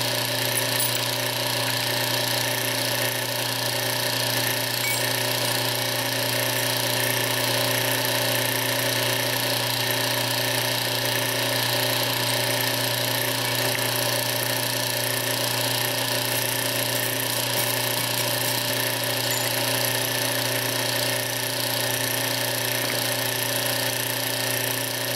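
Steady mechanical drone of a running machine: a hum with a high whine over it, unchanging in level and pitch.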